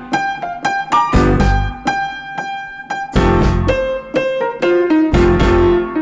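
Background music led by electric piano, with bass notes under some phrases.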